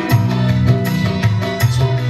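Live dangdut band music: electronic keyboard over a steady drum beat and bass line, an instrumental stretch without singing.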